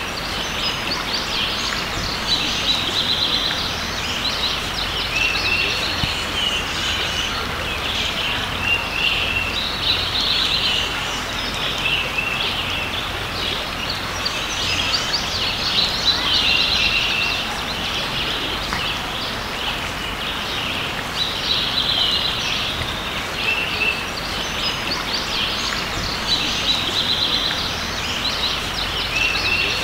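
Several songbirds singing and chirping, with trilled phrases recurring every few seconds, over a steady rushing background of flowing creek water.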